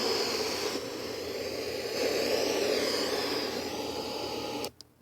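Brookstone pop-up speaker's FM radio blaring loud static hiss with no station tuned in, its tone wavering slightly; it cuts off suddenly near the end.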